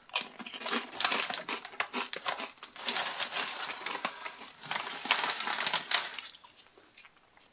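Lorenz Crunchips potato chips crunching and snapping, with the foil crisp bag crinkling as a hand rummages in it. It is a dense run of sharp crackles that thins out about six seconds in.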